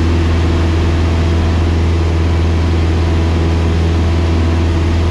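Cessna 172's piston engine and propeller running steadily at climb power just after takeoff, a loud, even low drone heard from inside the cabin.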